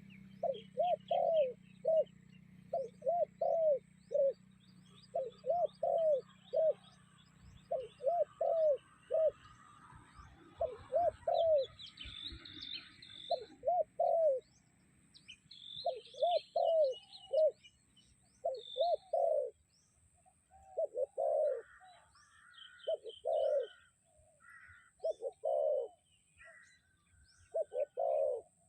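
A bird calling over and over: phrases of three or four low, arching notes about every two seconds, with fainter, higher chirps from other birds in the middle.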